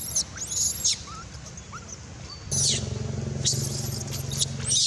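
Baby long-tailed macaque screaming in shrill, sweeping squeals, in bursts near the start and again in the second half. From about halfway through, a motor's steady low hum runs underneath.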